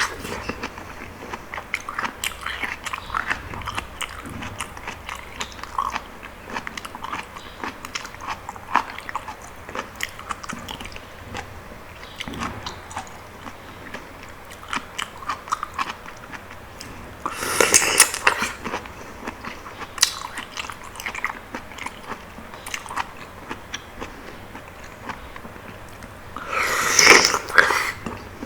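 Close-miked chewing of soft, juicy palmyra palm fruit (sea coconut) in passion fruit juice: many small wet mouth clicks and squelches. Two louder, longer bursts of eating noise come about two-thirds of the way through and again near the end.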